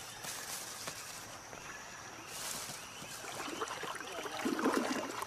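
Rainforest ambience: a steady high hiss, with a brief louder rush of high hiss about two and a half seconds in, and a few louder, irregular sounds near the end.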